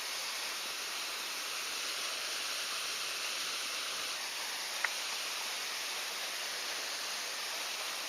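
Steady rush of a running stream, with one small click about five seconds in.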